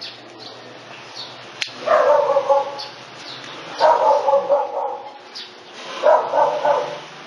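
A dog barking three times, each bark drawn out and about two seconds apart.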